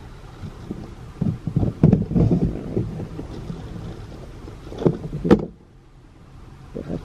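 Rummaging through a plastic storage tote: rustling bags and soft plastic knocks, with two sharp knocks about five seconds in.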